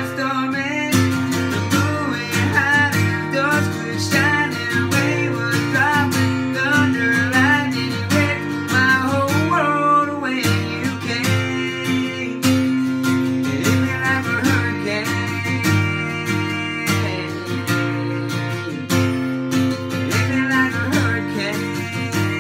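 A male voice singing over a steel-string acoustic guitar strummed in a steady rhythm.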